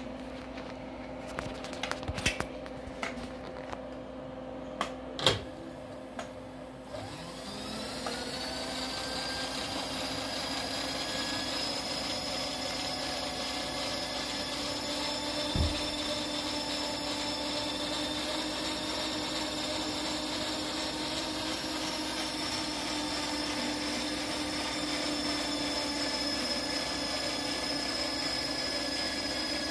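Small electric winch (hoist) lifting a heavy 8-inch rotary table. A few sharp clanks and clicks come first. About seven seconds in, the motor starts with a rising whine and then runs steadily under load, with one dull thump about halfway through.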